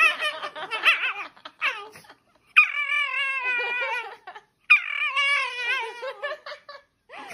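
Shiba Inu giving long, wavering, high-pitched cries, the breed's howl-like scream: one trailing off about a second in, then two more, each about a second and a half long.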